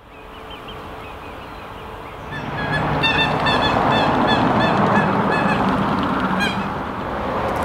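Geese honking over and over, many short calls overlapping about two seconds in, above a loud, steady rushing noise that swells at the same time.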